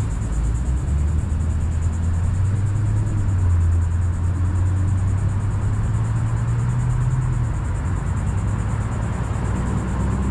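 Low engine rumble of a passing vehicle, strongest in the middle and dropping away about seven seconds in. Over it runs a steady high trill of insects.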